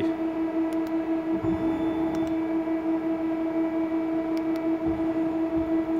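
1986 Mazak QT10N CNC lathe running with a steady hum while its turret brings the bar puller in toward the chuck, with a few light clicks.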